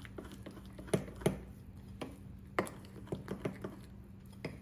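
Metal spoon stirring beetroot into dosa batter in a glass bowl, clinking against the glass at irregular intervals.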